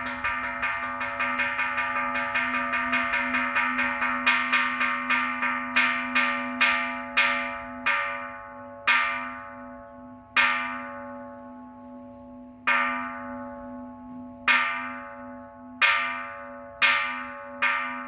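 Hanging bronze Buddhist temple bell (kansho) struck again and again with a hand-held hammer, the bell rung at the start of a service. The strikes come fast and close at first, slow to gaps of a second or two through the middle, then quicken again near the end. Each stroke leaves a ringing hum under the next.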